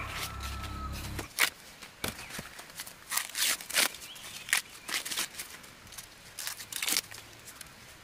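Footsteps with rustling and crackling of dry leaves and plant stalks, in irregular short snaps and crunches. A low steady hum cuts off about a second in.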